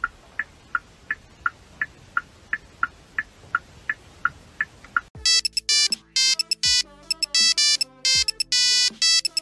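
Faint short high pips, about three a second, for the first five seconds. Then a loud electronic ringtone melody starts: bright, clean tones in short and longer notes.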